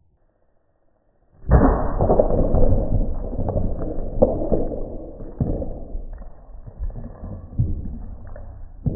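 Small cylindrical magnets dropped from 30 feet clattering onto carpet and a baseboard, heard slowed down and deep. A sudden loud crash comes about a second and a half in, then many scattered knocks fade away, with a few more thumps near the end.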